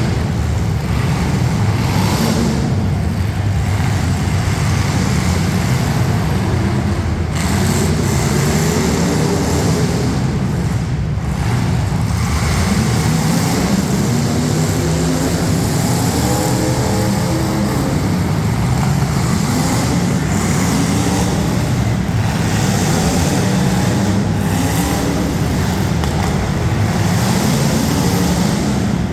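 Engines of several demolition derby street stock cars running hard, their pitch rising and falling again and again as they rev up and down, overlapping, loud and continuous.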